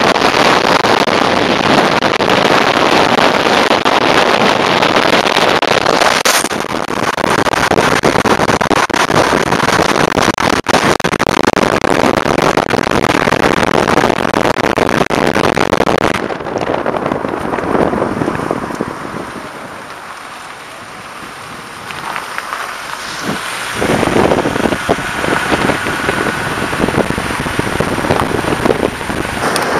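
Wind rushing over a microphone mounted on the outside of a moving car, mixed with tyre and road noise. It eases for a few seconds about two-thirds of the way through, then picks up again.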